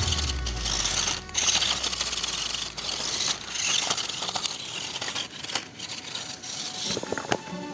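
Small RC car rattling and crunching over loose stones, with irregular clicks and knocks from its plastic chassis and wheels on the rocks.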